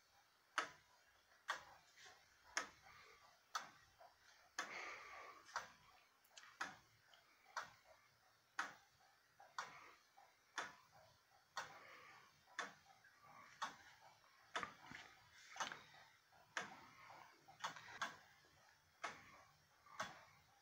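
Gideon Roberts wooden-movement tall case clock (circa 1790) ticking faintly and evenly, about once a second.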